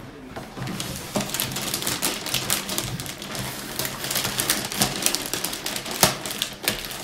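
Gift-wrapping paper rustling and crinkling as a wrapped present is handled and unwrapped, with a few sharper crackles.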